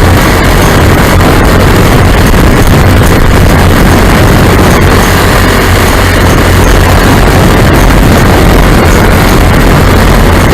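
Lazair ultralight's twin small engines running steadily and loud, mixed with heavy wind rush on the microphone.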